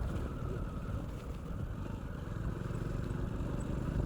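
A 100 cc motorcycle's engine running steadily while riding.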